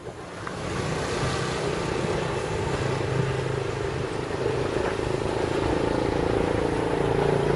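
A motor vehicle engine running close by: a steady pitched hum that grows a little louder toward the end.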